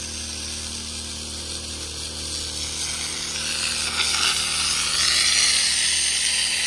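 Water jet from a blue washdown gun hissing and splashing, getting louder about three to four seconds in as the stream strikes the concrete sidewalk instead of the grass, then dropping off suddenly at the end.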